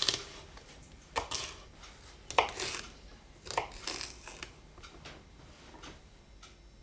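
Kitchen knife slicing a pepper on a wooden chopping board: a crisp cut about every second, each with a few smaller taps of the blade, turning to faint light taps after about four and a half seconds.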